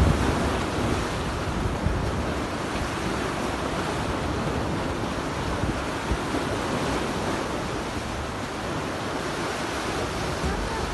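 Strong wind blowing steadily over a rough lake, with waves washing against floating pontoons and wind buffeting the microphone as a low rumble.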